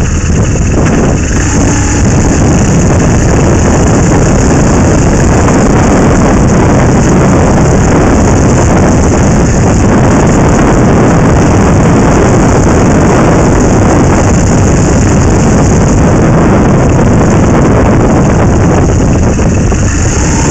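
Motorcycle riding noise picked up by a bike-mounted camera: the engine running steadily under dense wind rumble on the microphone, loud and unbroken.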